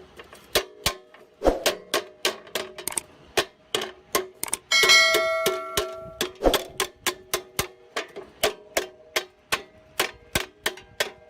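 Hammer blows on sheet metal, about three a second, each strike leaving a short metallic ring; about five seconds in one blow rings out brighter and longer, like a clang.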